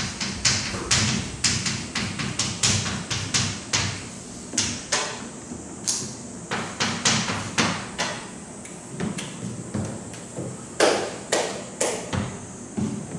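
Writing on a board: a run of short, sharp taps and quick strokes, two or three a second, with a brief pause about two-thirds of the way through.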